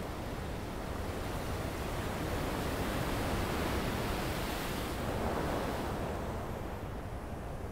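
Waves breaking on a sandy beach: a steady wash of surf that swells in the middle and eases off toward the end, over a low rumble.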